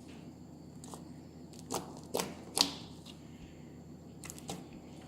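Slime being squeezed and pressed, giving a few sharp pops and clicks, the loudest about two and a half seconds in.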